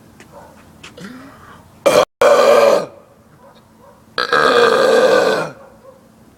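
Two very loud, deliberate belches from a man straining for maximum volume: a shorter one about two seconds in and a longer one of over a second about four seconds in.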